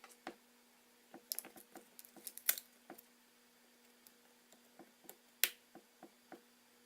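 Scattered small clicks and taps of tools and small parts being handled during iPhone 4S reassembly, with a cluster of them about a second in and a sharp click about five and a half seconds in, over a faint steady hum.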